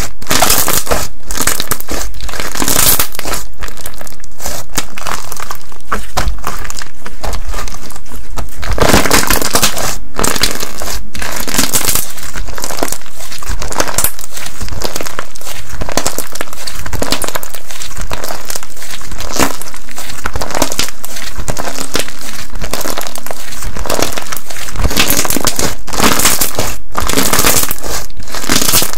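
Kokomo Slime's Big Milk Mini Melts slime being squished and pressed close to the microphone, a loud, continuous run of dense crackling and crunching pops.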